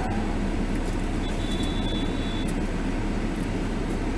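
Steady low car engine and road rumble picked up by a dashcam inside the car. A faint high-pitched beep starts a little over a second in and lasts about a second.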